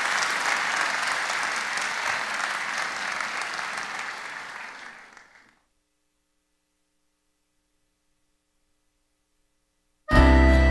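Applause that fades away over about five seconds, then silence; instrumental music starts abruptly near the end.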